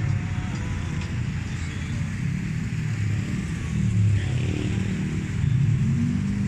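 Low, steady rumble of a motor vehicle engine running, swelling briefly about four seconds in.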